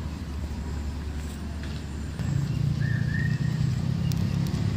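Low, steady drone of a motor engine running in the background, growing louder about two seconds in.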